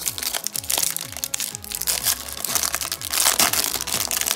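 Foil trading-card pack wrapper crinkling and crackling as it is torn open by hand, over background music with a low falling bass note repeating about twice a second.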